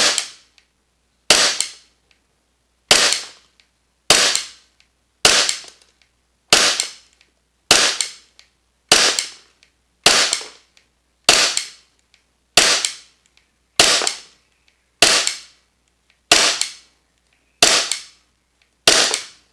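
VFC/Umarex Glock 45 gas blowback airsoft pistol, still on its factory cylinder bulb, firing single shots in a steady string. About sixteen sharp shots come roughly one every 1.2 seconds, each dying away over about a second.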